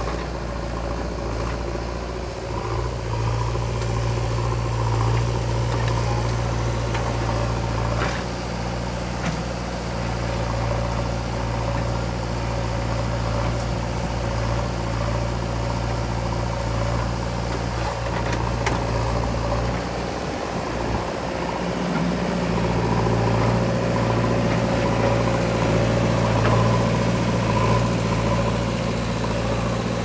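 Diesel engines of a JCB 3DX backhoe loader and a Mahindra 575 DI tractor running with a steady low hum. The note drops out briefly about two-thirds of the way through, then returns a little stronger.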